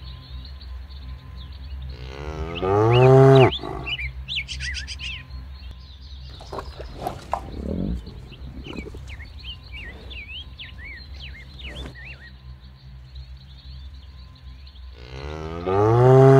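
Cows mooing: two long, loud moos rising in pitch, one about two to three seconds in and one near the end. Birds chirp in between over a steady low background hum.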